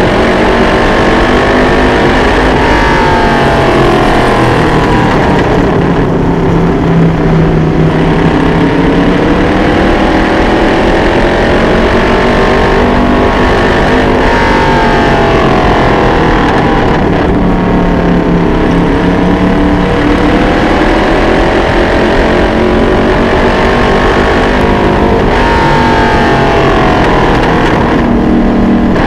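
Vintage Late Model race car's carbureted engine at racing speed on a dirt oval, heard loud from on board. It revs up along the straights and falls back going into the turns, several times over.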